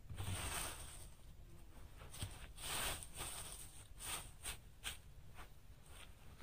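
A string of short, irregular rustling and scraping sounds, about half a dozen, from dry bark and sticks being handled while a campfire is laid.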